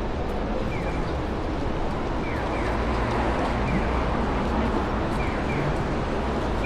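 Steady city street noise with a dense hum of traffic. Short high falling chirps, often in pairs, recur every second or so.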